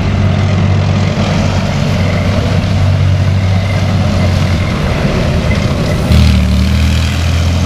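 Heavy vehicle engine running steadily with a deep hum. About six seconds in, its note shifts deeper and louder.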